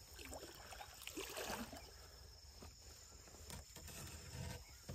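Faint water swishing and splashing as a small boat is poled through a pond with a bamboo pole, a little louder about a second in. A thin steady insect hum runs behind.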